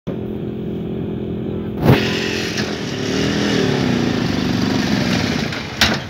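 A vehicle engine running steadily, rising and falling in pitch for a moment around the middle. There are two sharp thumps, one about two seconds in and one near the end.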